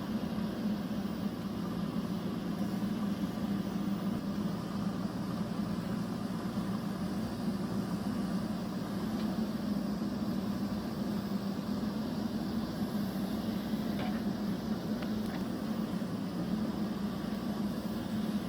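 A steady machine hum with a strong low droning note that holds unchanged throughout.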